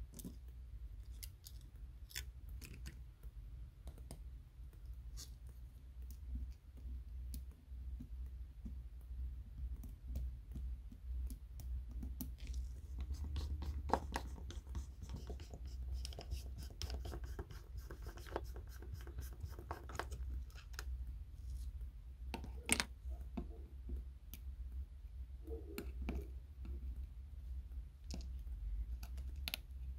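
Small metal tools clicking, ticking and scraping on a smartphone's screws, brackets and frame during a teardown. A precision screwdriver works a screw, with a stretch of rasping in the middle, and tweezers pick at small parts. Two sharper clicks, about a third and three quarters of the way in, are the loudest, over a steady low hum.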